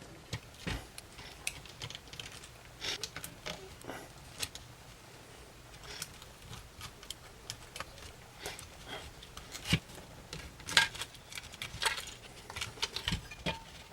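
Irregular small clicks and taps of plastic and metal parts and tools being handled while a compact digital camera is taken apart, with a busier run of clicks near the end.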